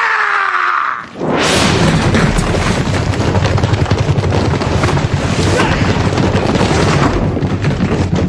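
A man's yell lasting about a second and falling in pitch, then a loud, dense action-movie fight soundtrack with a heavy low rumble that carries on.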